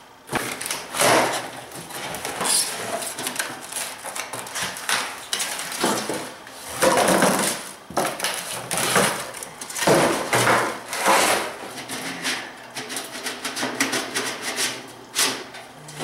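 Cardboard box rustling and scraping in irregular bursts as a portable propane convection heater is pulled out of its carton and set down on a concrete floor.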